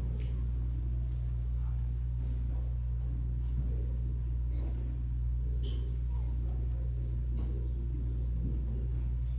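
Steady low rumble in the church room, with faint murmuring voices and a few small clicks and knocks between services' parts.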